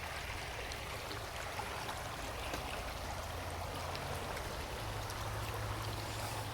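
Creek water flowing over small waterfalls: a steady, even rush of water.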